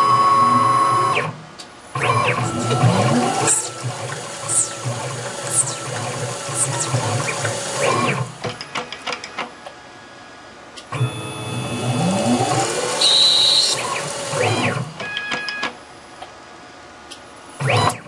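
CNC lathe axis drive motors whining as the cross slide and tool block move, rising and falling in pitch with each acceleration and stop. There are several separate moves with short pauses between them.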